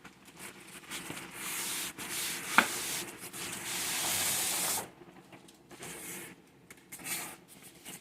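Cardboard and paper packaging of a model train box scraping and rustling as it is opened and handled, in several long hissing strokes with a sharp click about two and a half seconds in.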